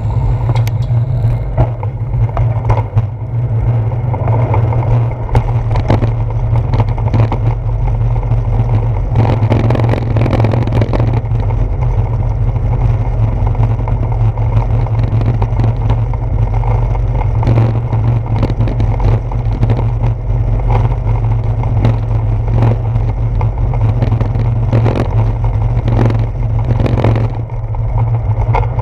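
Steady low rumble of wind and road vibration picked up by a handlebar-mounted action camera on a moving bicycle, with frequent rattling clicks from the tyres rolling over brick pavers.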